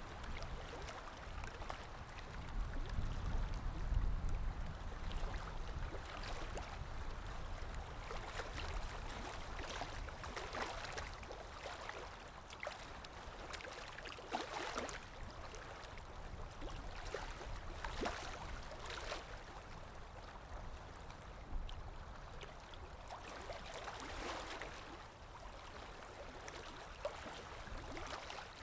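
Running water, a stream trickling and gurgling with small splashes now and then; it swells briefly about four seconds in.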